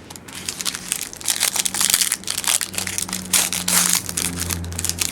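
Plastic wrapper of a trading-card pack crinkling and crackling as it is handled and opened, a dense run of crackles that starts about a quarter second in.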